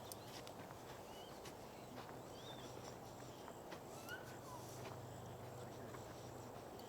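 Quiet woodland ambience with a few short, scattered bird chirps and occasional light footsteps on the trail.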